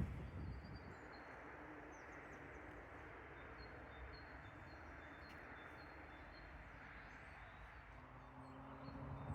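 Faint birdsong in a spring forest: small birds giving short high chirps here and there over a steady soft outdoor hiss. A low steady hum comes in near the end.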